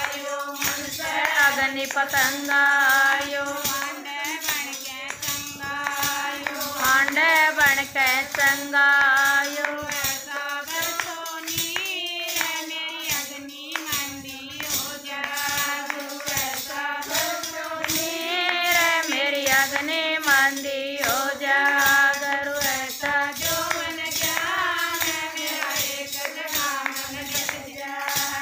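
A woman singing a Haryanvi bhajan, with a steady rhythmic jingle from a hand-held plastic paddle clapper fitted with rows of metal jingles, shaken in time with the song.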